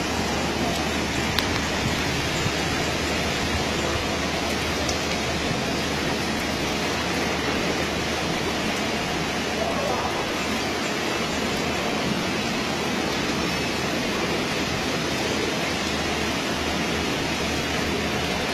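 Heavy typhoon rain and wind: a steady, even rush of noise with a small click about a second and a half in.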